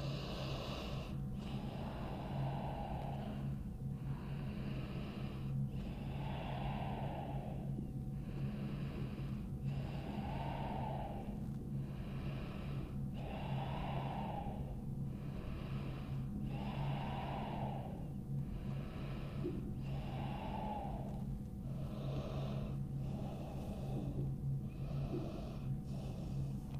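A woman's slow, deep breathing, in and out at an even pace of roughly one breath sound every one and a half to two seconds, close to the microphone, over a low steady hum.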